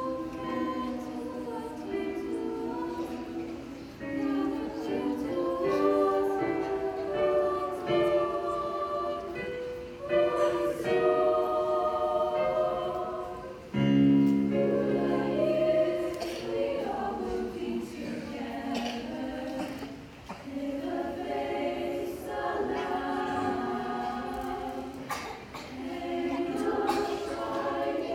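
Teenage girls' choir singing in harmony, in phrases with short breaks between them.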